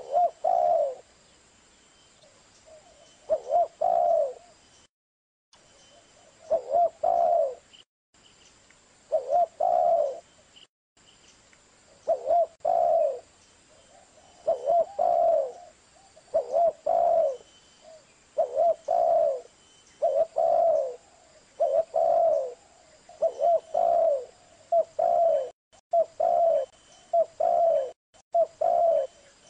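Spotted dove cooing: repeated phrases of a few quick coos, each about a second long, at first every three seconds or so, then coming closer together.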